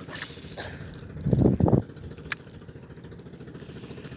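A small engine running steadily with a fast, even pulse. About a second and a half in comes a loud, low double rumble, and a sharp click follows just after two seconds.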